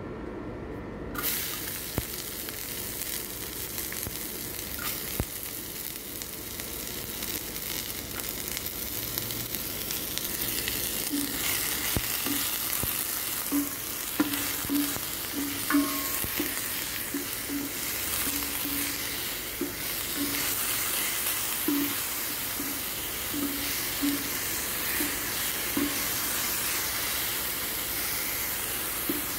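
Chopped onion frying in hot olive oil in a stainless steel pan: a steady sizzle that starts suddenly about a second in as the onion goes in, with a wooden spatula stirring and scraping through it.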